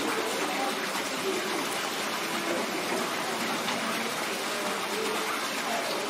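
Steady rush of running water, with faint distant voices underneath.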